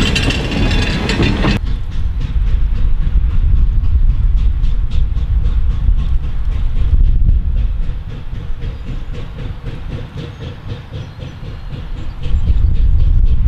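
For the first second and a half, a wooden passenger coach rolls past with its wheels clicking over the rail joints. Then the York #17, a 4-4-0 "American" type steam locomotive, works toward the camera: a low rumble with a steady beat of exhaust chuffs, the engine laboring under heavy black smoke.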